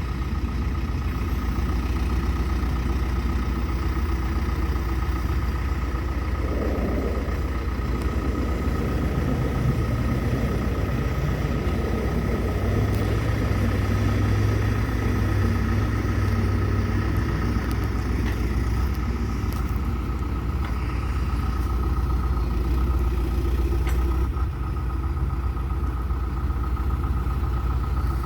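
Diesel engine of a 2005 John Deere 310SG backhoe loader running steadily, with a thin steady whine above it. The engine note shifts for a while around the middle.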